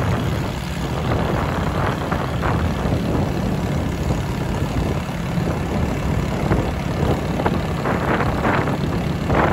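Motorcycle engine running steadily with a loud, rumbling exhaust: the muffler is worn out and needs replacing.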